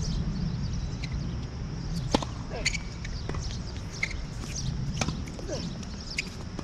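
Tennis rally on a hard court: a tennis ball being struck by racquets and bouncing, heard as a series of sharp pops and knocks a second or so apart, over a steady low rumble.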